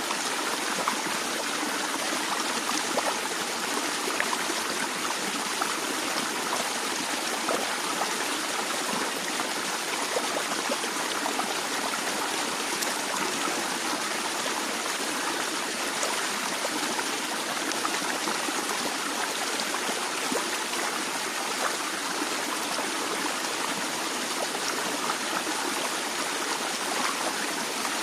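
A stream of water flowing and trickling steadily, with a constant rushing hiss and small splashes and gurgles throughout.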